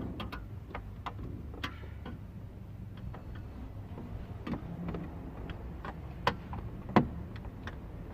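Scattered sharp metal clicks and taps as the tabs of a car stereo's metal mounting sleeve are bent over with a flathead screwdriver to lock it into the dash, the loudest two about six and seven seconds in, over a low steady hum.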